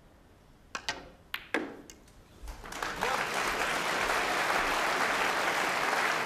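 Snooker balls clicking: the cue tip striking the cue ball, then several sharp ball-on-ball knocks within the first two seconds. Audience applause then swells in about two and a half seconds in and carries on loudly, greeting a pressure pot.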